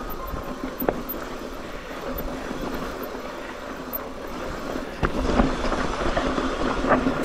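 Electric mountain bike rolling over a rough trail: tyre rumble and rattling of the bike, with sharp knocks about a second in and again near the end. It gets louder from about five seconds in.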